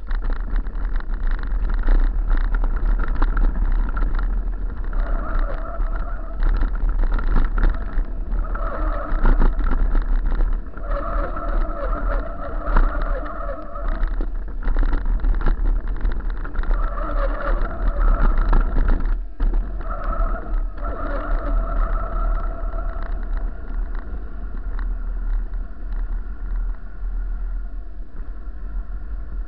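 Bicycle brakes squealing in a series of held, pitched squeals on a fast descent over paving stones and dirt, under a constant rattle of the bike and a steady low wind rumble on the microphone. The squeals stop a few seconds before the end.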